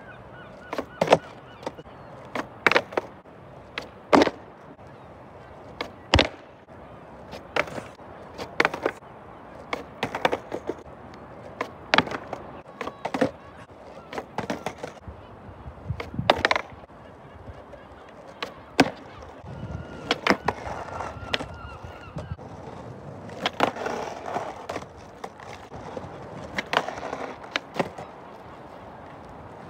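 Skateboard on rough asphalt: sharp clacks of the tail popping and the board slapping down, every second or two and irregular, with the rumble of wheels rolling on the tarmac between.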